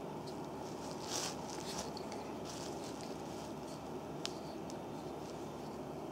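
Wooden reflexology massage stick and fingers rubbing and pressing into an oiled sole: soft squishing, scraping strokes, with one sharp tick a little past four seconds in, over a steady background hiss.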